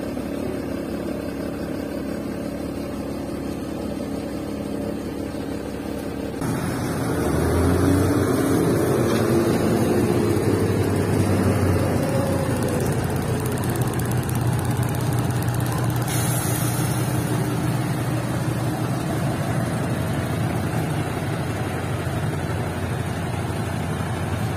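Diesel dump truck engine running, first heard from inside the cab while driving. About six seconds in it gives way abruptly to a louder truck engine idling outside, supplying air for tyre inflation from a hose, with a short high hiss of air about sixteen seconds in.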